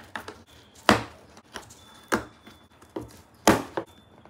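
Scissor blades stabbing through the taped seam of a cardboard box, a sharp punch about once a second with softer taps between.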